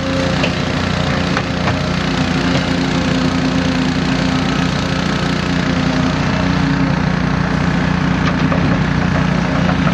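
Volvo excavator's diesel engine running steadily, with crackling and a few sharp clicks from the work over it.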